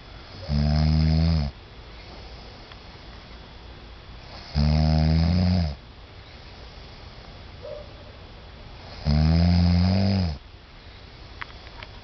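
A man snoring: three long snores about four and a half seconds apart, each lasting just over a second.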